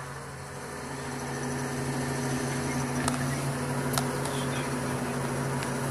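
Mobile crane's engine running steadily, heard from inside the operator's cab, growing a little louder in the first second or two. Two light clicks come about three and four seconds in.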